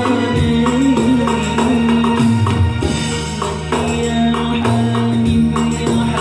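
A man singing through a handheld microphone, holding long wavering notes, over a musical accompaniment with tambourine-like jingling percussion and sustained low bass notes that change every second or so.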